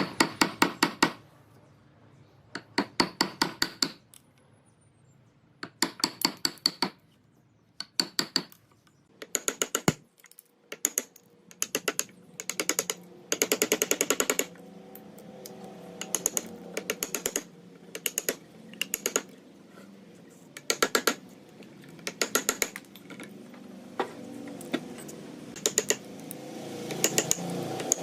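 Bursts of rapid sharp tapping or knocking, each lasting about a second and coming every second or two, from hand work on wood. A faint steady hum sits under the second half.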